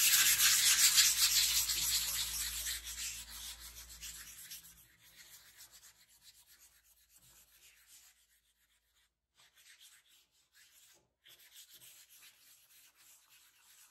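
Hand sanding of stained wooden boards with small pieces of sandpaper, a light scuff over the whole surface: a scratchy rasp of paper on wood, loud for the first few seconds, then fading to faint, uneven strokes.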